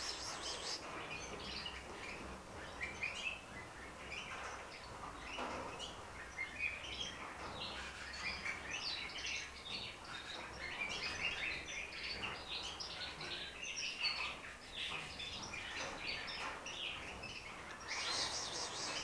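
Several caged Spanish Timbrado canaries giving their first tentative song notes, scattered short chirps and brief phrases from different birds. A short hiss comes near the start and again near the end.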